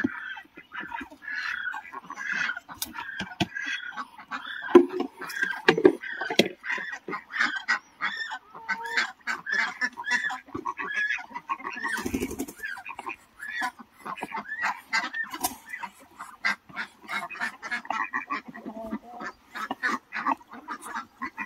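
A flock of domestic ducks and other fowl calling over one another, a steady stream of short overlapping calls. A brief rustling thump about twelve seconds in.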